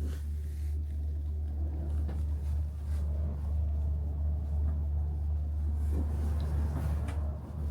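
Steady low rumble and hum of a moving vehicle, heard from inside.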